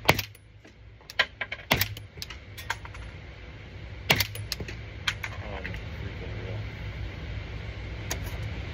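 Suppressed shots from an 8-inch 300 Blackout AR-style rifle firing 220-grain subsonic rounds through a titanium CAT ODB suppressor: three sharp reports in the first four seconds, roughly two seconds apart, with lighter clicks between them and a steady low hum behind.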